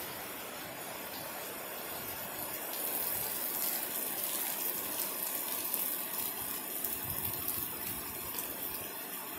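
Heavy rain pouring down steadily, a dense even hiss of downpour on leaves, concrete and standing water.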